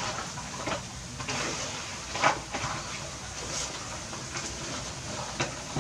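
A few light knocks and clatters as a baby pigtail macaque climbs about on plastic buckets, over steady background noise. The loudest knock comes about two seconds in.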